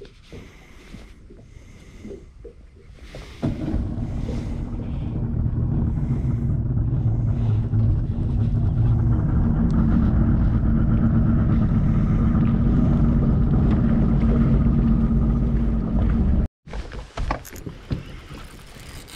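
Boat motor running steadily, a low rumble with a steady hum and a faint higher whine, starting about three and a half seconds in and cutting off abruptly near the end. Faint small handling clicks before and after it.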